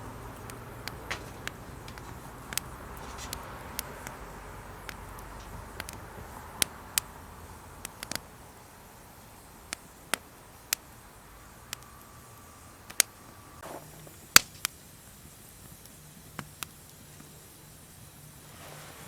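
Wood campfire crackling, with irregular sharp pops and snaps over a low steady background. A brief faint whistle comes about two-thirds of the way in.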